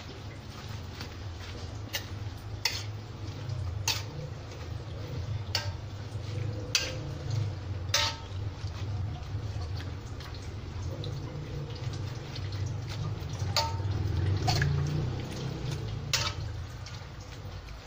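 Spinach being turned over in boiling water in a wok: steady bubbling and sloshing water, with sharp clicks now and then as the utensil knocks against the wok.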